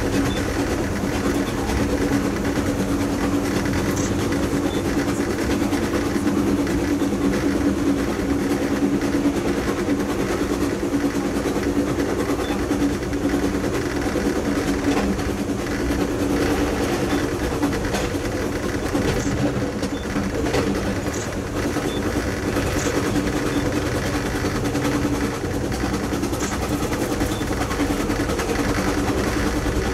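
Passenger train running at steady speed, heard from on board: a continuous rumble and hum of the moving train, with faint light ticks every few seconds.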